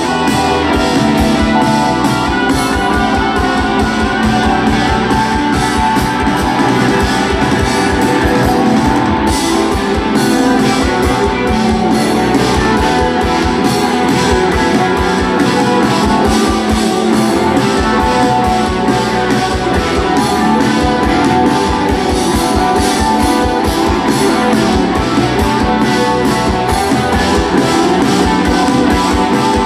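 Live rock band playing an instrumental section: electric guitars strummed over a drum kit and keyboard, loud and steady throughout.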